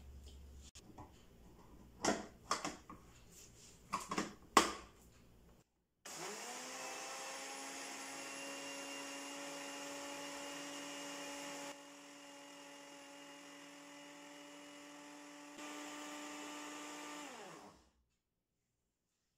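A few knocks and clicks as a small plastic grinder jar is handled and set in place. About six seconds in, a Philips blender motor spins up and runs steadily, grinding flattened rice to powder. It goes quieter partway through, comes back up, then winds down and stops near the end.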